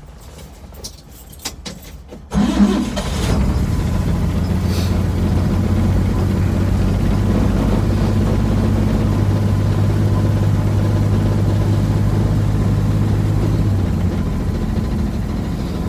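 A 1954 Chevrolet 3100's 235 inline-six engine is started cold on the choke, after a few clicks at the key. About two seconds in it fires straight up and settles into a steady idle, which drops a little near the end.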